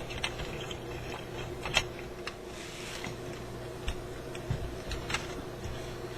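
Scattered small clicks and light knocks of car radio parts and tools being handled on a workbench, with a brief soft rustle near the middle, over a steady low hum.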